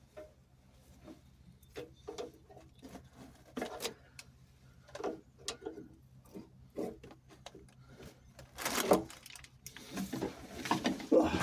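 Irregular clicks, knocks and scrapes of hand tools and metal pipe fittings being handled, getting louder and busier in the last few seconds.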